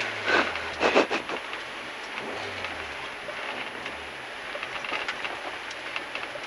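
Rally Renault Clio's engine heard from inside the cabin, its revs dropping at the start and then running low and quiet under a steady hiss of tyre and road noise. A few sharp knocks or rattles come about a second in.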